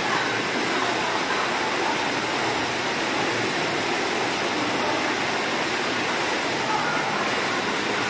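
Steady rush of water running down water slides and splashing into a pool.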